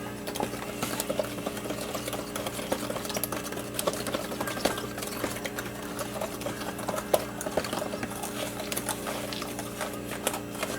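Electric hand mixer running steadily, mixing a batter of milk, flour and butter, with frequent light clicks over its motor hum.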